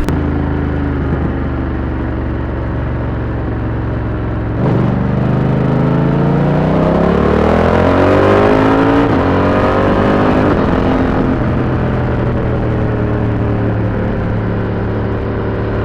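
BMW F 900 R's parallel-twin engine running through an SC Project SC1-R carbon exhaust with the dB eater fitted, heard while riding. About four seconds in the throttle opens and the engine note climbs for a few seconds, then it falls back and settles into steady cruising.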